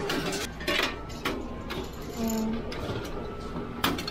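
A ticket vending machine clicking several times and giving a short low beep about two seconds in as it takes and refuses a 5-ringgit banknote, over station background noise. The sharpest click comes near the end.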